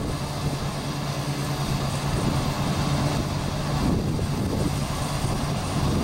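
Small ISEKI rice combine harvester running steadily as it cuts rice, a continuous engine drone with a low hum.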